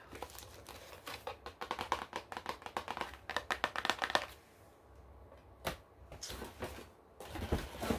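Long fingernails tapping fast on a plastic-and-card blister pack, a dense run of clicks that stops about halfway through. After a pause comes a single sharp tap, then looser handling noises of the pack.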